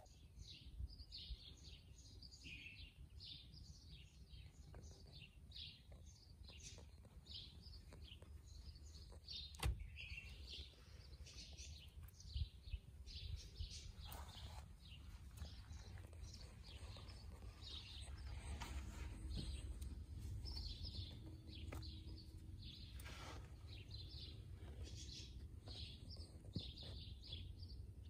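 Small birds chirping: quick, overlapping high chirps, several a second, over a faint low rumble, with a few sharp clicks.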